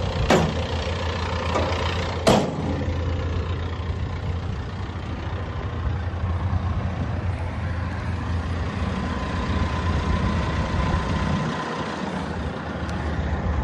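Hitachi ZX160LC-6N excavator's diesel engine idling steadily. Near the start, two sharp knocks about two seconds apart as a steel side access door is pushed shut.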